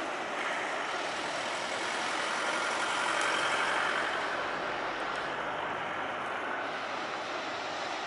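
Steady rushing of heavy ocean surf breaking, swelling slightly about three to four seconds in.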